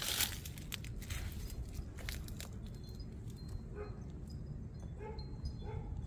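A dog barking three short times, the barks a second or less apart, over a steady low rumble. Scratchy rustling comes in the first two seconds.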